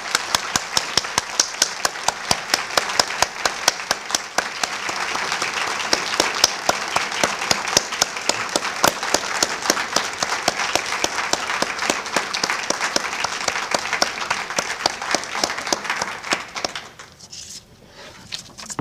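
Audience applauding, with one pair of hands close to the microphone clapping in a steady rhythm of about three to four claps a second over the crowd. The applause fades out near the end.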